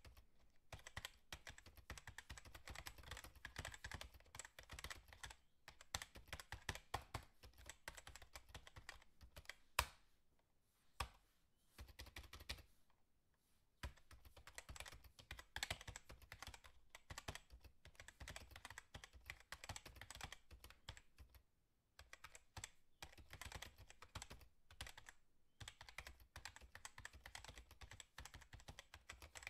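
Faint, rapid small clicks and taps in runs, broken by a few short pauses, with one sharper click about ten seconds in.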